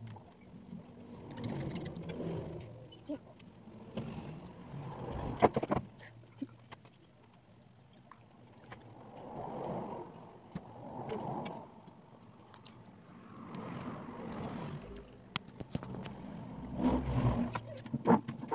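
Mealtime sounds at a table: chewing and soft wordless murmurs and hums from the eaters, coming and going in short stretches, with a few sharp clicks from cups or dishes, the loudest about five seconds in and near the end.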